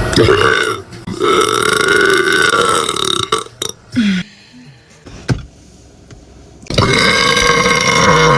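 A young woman burping loudly: a long, drawn-out burp in the first three seconds with a short break about a second in, then another long burp starting about seven seconds in and running on.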